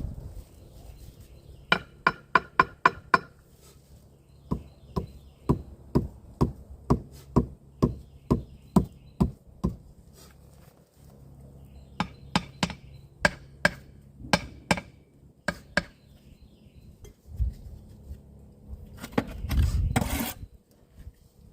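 Hammer strikes on wood in runs: a quick flurry of blows, then a steady run of about three blows a second, then a few more after a pause. A short burst of noise comes near the end.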